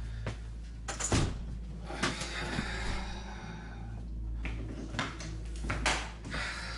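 A house door shut with a couple of knocks, then louvered swinging saloon doors pushed open with a short run of knocks near the end.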